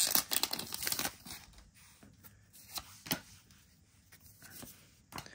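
Foil booster-pack wrapper crinkling for about the first second, then Pokémon trading cards being slid and shuffled in the hands with scattered soft clicks.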